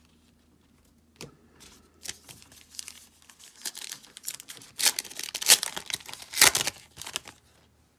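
A 2024 USA Baseball Stars and Stripes trading-card pack wrapper being torn open and crinkled by hand, starting about a second in as a run of sharp crackles that is loudest in the middle and again near the end.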